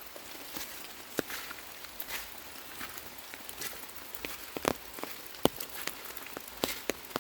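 Irregular crackling and snapping, typical of footsteps through dry leaf litter and twigs, with a few louder snaps about four and a half and five and a half seconds in.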